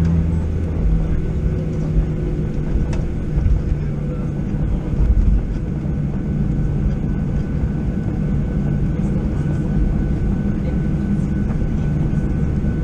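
Cabin noise of a Boeing 737-800 taxiing, heard from a window seat over the wing: its CFM56-7B turbofans running at taxi power with a steady low hum and a faint high whine.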